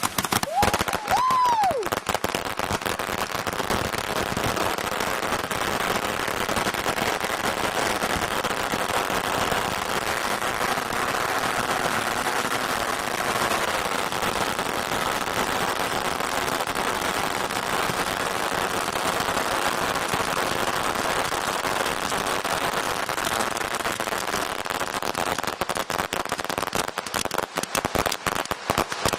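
A bundle of about 200 roman candles firing together: a dense, unbroken barrage of crackling shots. A short whistle rises and falls about a second in, and the shots thin into sharper separate bangs in the last few seconds.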